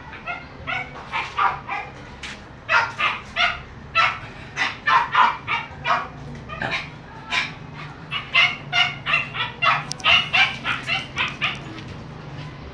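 A one-month-old puppy yipping over and over in short calls, about two or three a second, with a few brief pauses.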